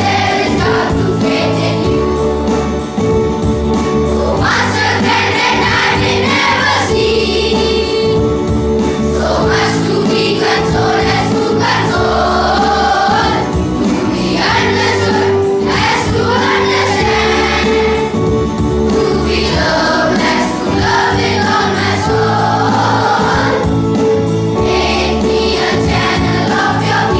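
Children's choir singing a hymn with steady keyboard accompaniment.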